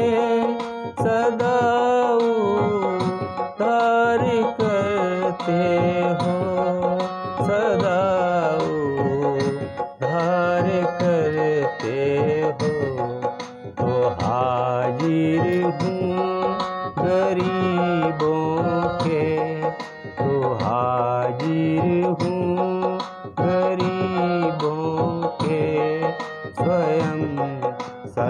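A man singing a Hindi devotional bhajan, accompanying himself on an electronic keyboard, over a steady tabla rhythm.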